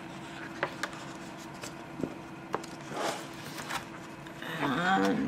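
Pages of a softcover book being turned and handled: soft papery swishes with scattered light ticks.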